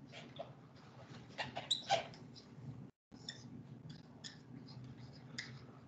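A dry-erase marker squeaking and scratching against a whiteboard in short strokes as words are written. There is a brief break to silence about three seconds in.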